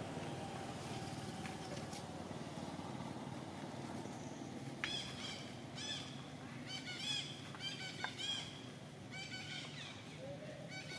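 Baby macaque screaming in distress as a bigger monkey handles it: a rapid run of short, shrill, arching cries that starts about halfway through and goes on to the end. Before the cries there is only a steady background hiss.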